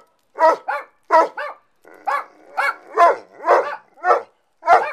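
A dog barking in a quick string of short, pitched barks, about two a second, each one rising and falling in pitch.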